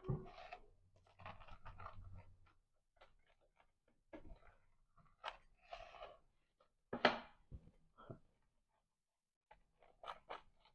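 Rolling pizza cutter pressing through a crisp, charred pizza crust, a series of short irregular crackling cuts with brief pauses between strokes.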